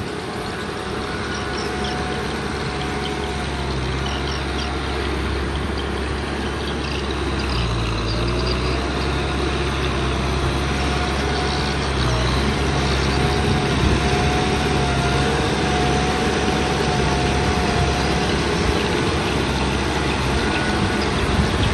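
Kubota M6040 tractor's diesel engine running steadily while working, growing slightly louder, with a thin wavering whine above the engine note.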